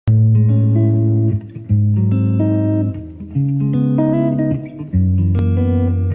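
Background music: plucked guitar notes over a bass line, in repeating phrases of about a second and a half.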